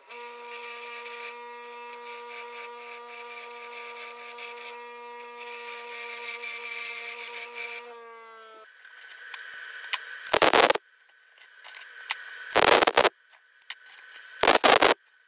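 Bench grinder running with a steady hum while a steel rod is ground against its wheel; the grinding hiss comes and goes. Near 8 s the hum drops in pitch and breaks off. Later come two loud, harsh half-second bursts from another tool.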